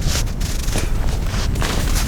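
Wind buffeting the microphone, a heavy steady rumble, with scattered short scuffing noises over it.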